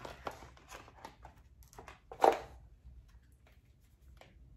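Lid of an iPhone 11 Pro Max box lifted off and the phone and its packaging handled: light rustling and soft clicks, with one short loud sound about two seconds in.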